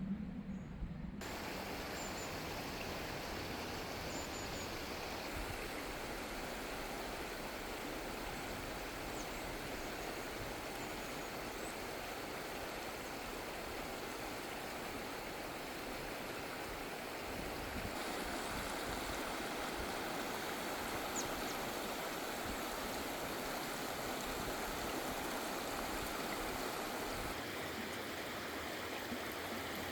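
Stream water rushing steadily, setting in abruptly about a second in, with a few faint high chirps over it.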